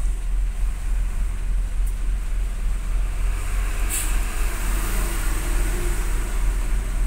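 Steady low rumble of a vehicle's engine and road noise heard from inside the cab while creeping in traffic, with a short hiss about four seconds in.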